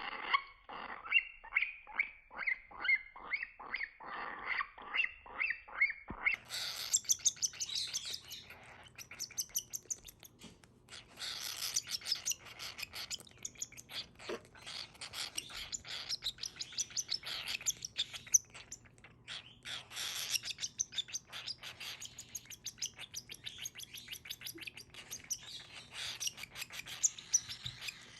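Baby cockatiel begging calls while being hand-fed: a run of repeated chirps, two or three a second at first, turning higher and faster about six seconds in and carrying on rapidly, with a faint low hum behind.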